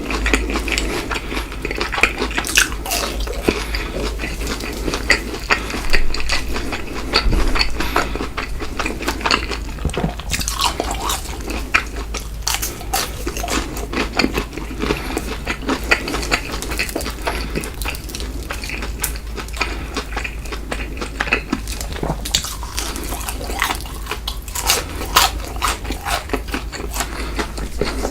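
Close-miked eating: repeated bites and wet chewing of a burger and fried snacks, with crisp crunching and smacking.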